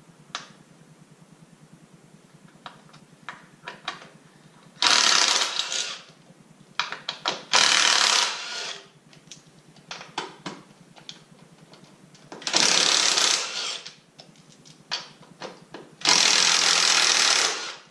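Cordless power driver running in four bursts of one to two seconds each, spinning bolts on a motorcycle's frame brace, with light clicks and knocks of tool handling between the bursts.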